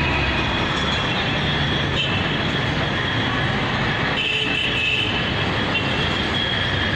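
Steady, dense traffic-like background noise with no break, with faint high steady tones about four seconds in.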